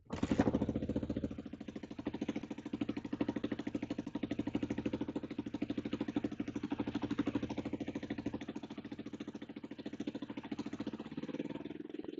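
Kawasaki KLR250's single-cylinder four-stroke engine catching suddenly and running at a steady, even idle with the enrichener on. It has an exhaust blow at the manifold.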